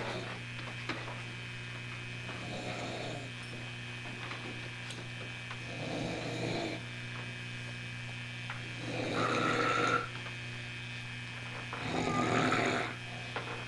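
A sleeper snoring with pig-like snores, four snores about three seconds apart, the last two the loudest, over a steady low hum.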